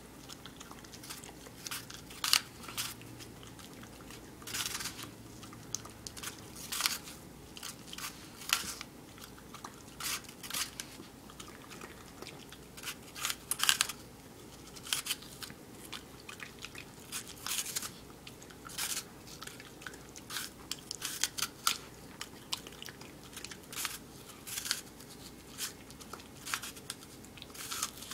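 A dog biting into and crunching a raw apple held in a hand, with irregular crisp crunches about one or two a second as it chews.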